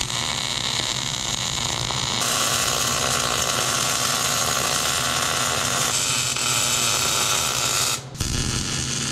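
MIG welding arc crackling and sizzling steadily as steel brackets are welded onto an axle, over a low steady hum. The crackle changes character about two and six seconds in and breaks off briefly about eight seconds in.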